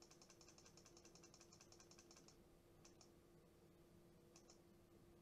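Faint clicking at a computer: a fast run of clicks for about two seconds, then a few separate double clicks. A faint steady hum runs underneath.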